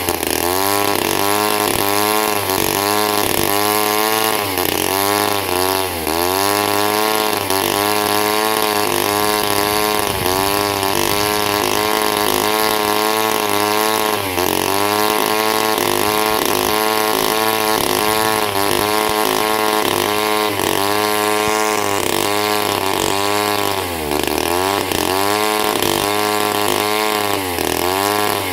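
Bolens CS 3500 two-stroke chainsaw running unevenly: its speed wavers all the time and sags several times before picking back up. It is running on primer fuel, with a carburettor that needs a rebuild kit.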